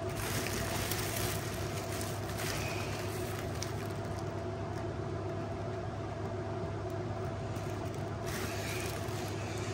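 A steady machine hum with a constant low tone, with faint rustling about half a second in and again near the end.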